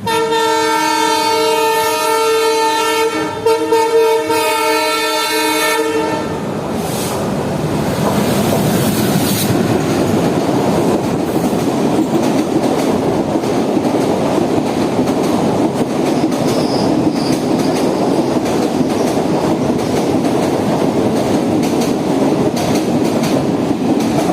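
Indian Railways express train sounding a long horn blast of about six seconds, then running past at speed with its wheels clattering over the rail joints.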